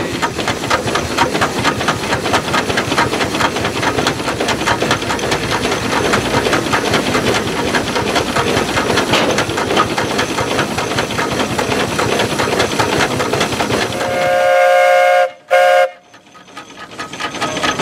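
1920 Advance Rumely single-cylinder steam traction engine running, with even exhaust chuffs over a steady hiss of steam. About fourteen seconds in its steam whistle blows twice: a blast of about a second, then a shorter one.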